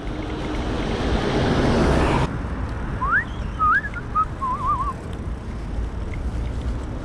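Wind and road rumble on a moving bike, with a rush of hiss that swells and then cuts off abruptly about two seconds in. A few seconds later comes a short run of whistled notes: quick rising and falling slides, ending in a warbling trill.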